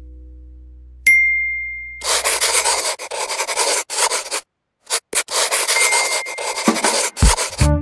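A single bright chime rings out about a second in. Then a permanent marker scratches across paper in short strokes, with a brief pause midway. Music comes in near the end.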